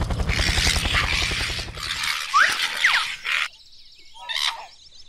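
Cartoon helicopter rotor thudding rapidly, stopping about two seconds in. A rushing whoosh with two short rising squeals follows, then faint jungle ambience.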